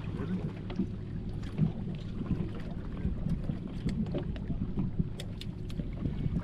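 Water slapping against a small boat's hull and wind on the microphone, over a steady low hum from the bow trolling motor. A few sharp clicks come about five seconds in.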